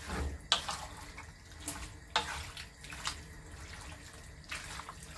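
Wooden spatula stirring raw chicken gizzards and livers coated in a wet vinegar-and-spice mix in a nonstick wok: wet squelching and scraping, with several sharper scrapes or knocks against the pan.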